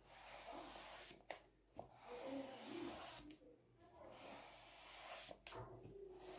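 Faint, soft rubbing of a scrub sponge dragged over a painted canvas: several strokes, each about a second long, with short breaks between.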